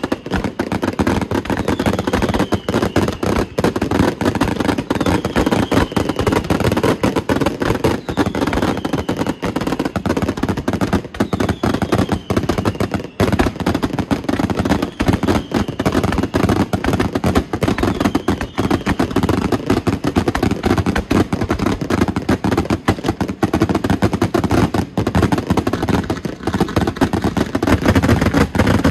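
Fireworks display barrage: a rapid, unbroken stream of bangs and crackling from aerial shells bursting overhead. Through the first two-thirds a short falling whistle repeats about every two seconds.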